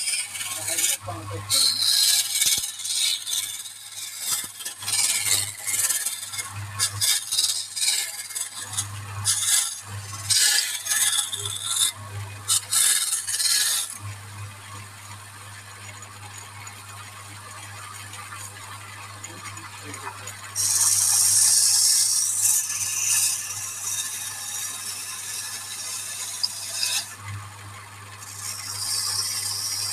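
Wood lathe motor humming steadily while a turning tool scrapes the spinning wood: many short hissing passes in the first half, then a long loud stretch about two-thirds of the way through and another near the end.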